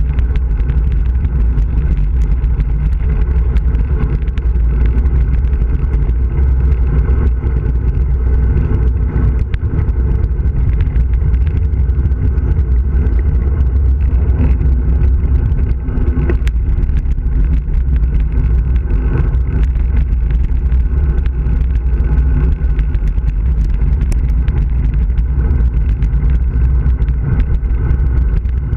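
Steady wind rush buffeting the microphone of a road bicycle coming down a mountain road at speed, with tyre noise on the asphalt beneath it and a few faint clicks.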